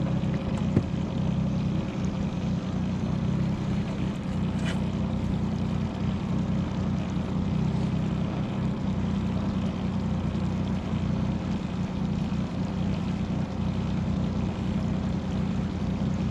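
A 40 hp outboard motor running steadily at slow trolling speed, a constant low hum.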